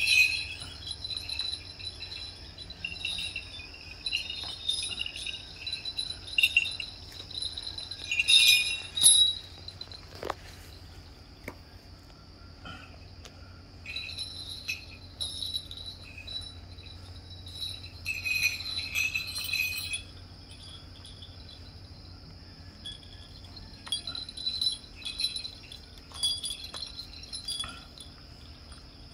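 Dance leg bells (contest bells, sleigh-type bells on a strap) jingling in irregular bursts as they are handled and tied onto the leg. The loudest jingles come about eight to nine seconds in and again around eighteen to twenty seconds in.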